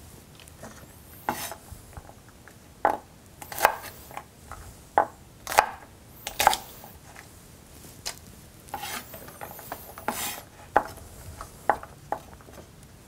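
Chef's knife chopping sugar snap peas on a wooden cutting board: about a dozen separate, unevenly spaced knife strikes on the board.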